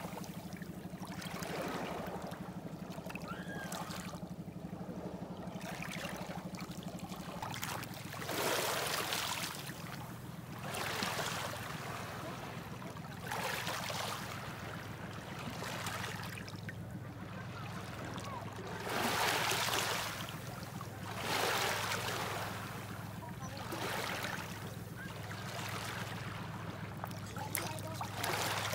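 Small waves washing in over a stony beach, the hiss of the water swelling and fading every two to three seconds, over a steady low hum that drops in pitch about a third of the way in.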